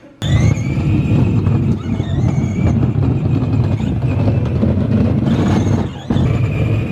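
Electric ride-on bumper car driving along a street: a steady rumble of its wheels on the pavement with a faint motor whine above it. It starts abruptly just after the beginning and dips briefly near the end.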